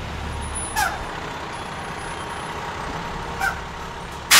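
Fire engine's diesel engine running low as the truck rolls slowly to a stop, with two short brake squeaks. Near the end a sudden loud air-brake hiss as the brakes are set.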